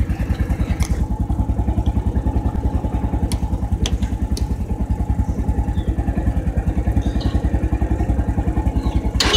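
Zanella ZB 110's Lifan 107 cc single-cylinder four-stroke engine idling with a steady, rapid putter, about a dozen beats a second. A few light clicks sound over it.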